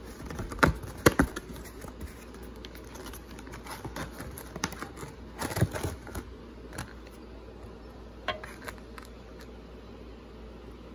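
Hands handling a cardboard trading-card box and the wrapped card packs inside it: a few sharp taps and knocks about a second in, a crinkly rustle of packs being shifted a little past the middle, and scattered light clicks after that.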